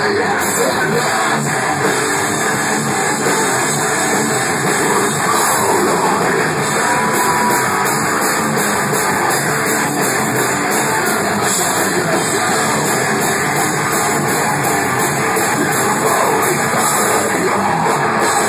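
Heavy metal band playing live: distorted electric guitars and a drum kit, a dense, steady wall of sound.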